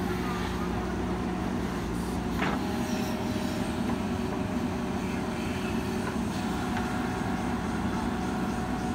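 JCB 3DX backhoe loader's diesel engine running steadily as the backhoe digs a trench, with a faint high tone that comes and goes.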